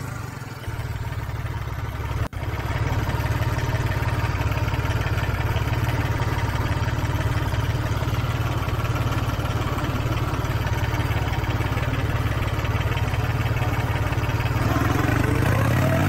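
An engine idling steadily and low, rising in pitch near the end as it revs up.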